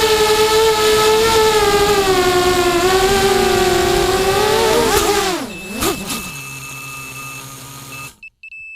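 FPV quadcopter's electric motors and propellers whining steadily, then the pitch drops sharply about five seconds in as the motors throttle down. A low steady hum with a thin high tone follows, cuts off suddenly near the end, and a short electronic beep sounds.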